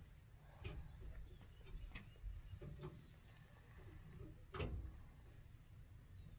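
Faint, scattered clicks and knocks at irregular intervals over a low rumble; the most distinct knock comes near the end.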